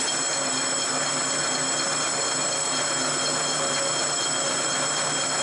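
Rebuilt AMT drill press's electric motor switched on and running steadily, a high whine over a low hum. It runs, a sign that the rebuild works.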